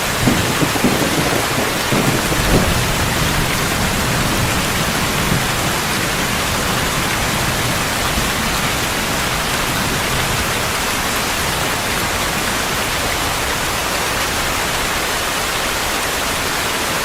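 Steady heavy rain, an even hiss. A low rumble of thunder with a few sharper peaks sounds in the first three seconds, then fades into the rain.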